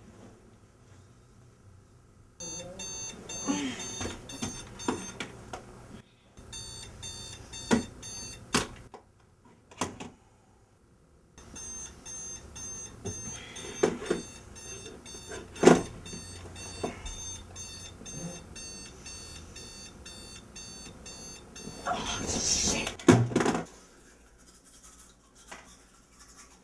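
Digital alarm clock beeping in a fast repeating pattern, cutting out and starting again several times, with sharp thumps as a hand slaps at the clock. A louder burst of noise comes near the end.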